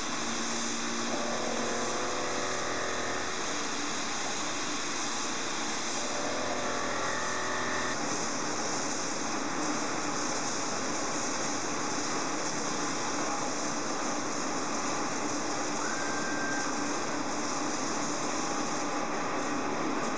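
CNC bed milling machine running, a steady hissing machine noise throughout, with two short pitched whines about a second and about six seconds in and a brief higher tone near the end.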